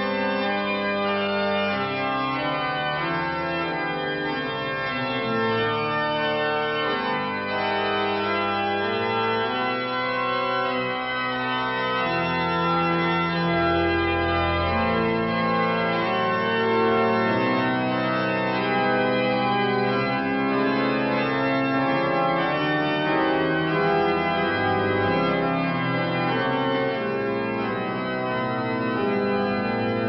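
Church organ playing slow, sustained chords, the bass notes moving every second or two.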